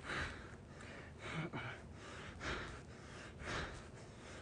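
A man breathing hard through a set of bicycle crunches, with short, breathy exhales about once a second, four in a row, the rhythm of the effort of each rep.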